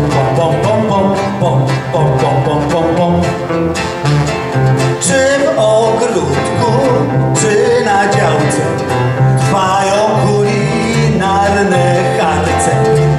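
Country-style acoustic band music: two acoustic guitars strumming and picking over an upright bass, a steady instrumental passage with no words.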